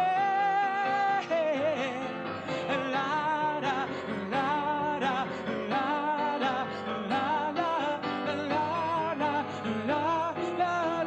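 Live song: a male singer holding long, wordless notes with a wide vibrato over instrumental accompaniment.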